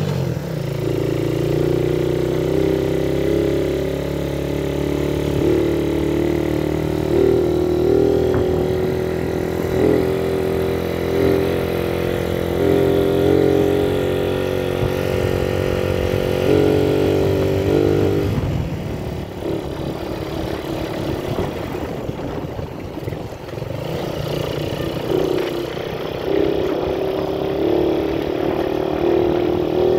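Small motorcycle engine running as it rides along, its note rising and falling with the throttle. It goes quieter for several seconds after the middle, then picks up again near the end.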